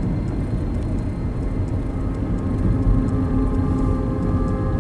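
Steady low rumble of a car's engine and tyres heard from inside the cabin while driving at town speed.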